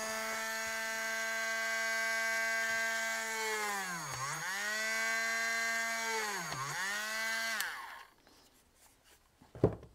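Dremel rotary tool with a tiny drill bit drilling a hole into a piece of old wooden yardstick: a steady high whine whose pitch sags twice, about four and six and a half seconds in, as the bit bears into the wood, then it switches off about eight seconds in. A single knock just before the end.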